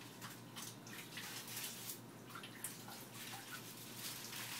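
Faint water splashing and dripping in a sink as wet spinach leaves are lifted and gathered out of a bowl of rinse water, in small irregular splashes rather than a steady stream.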